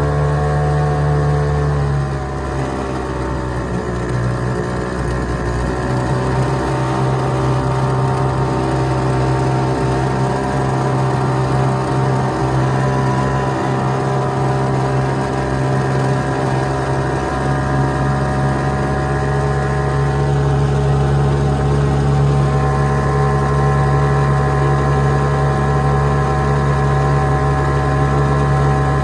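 Hangkai 3.6 hp outboard motor running under way. Its pitch drops about two seconds in as it is throttled back, then slowly climbs again.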